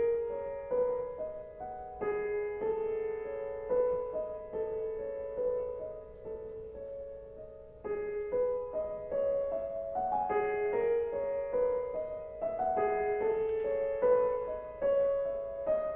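Background solo piano music, a classical piece with notes struck one after another, each ringing on and fading.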